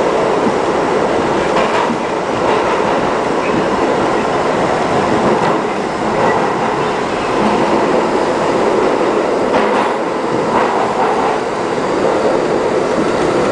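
New York City Subway #7 train running through a tunnel, heard from inside the car: a steady, loud rumble of wheels on rail, with a few faint clacks.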